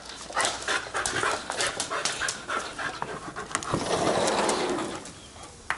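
Yellow Labrador puppy panting excitedly, with quick clicks of its claws on a hardwood floor. About four seconds in, a sliding glass door rolls open for about a second.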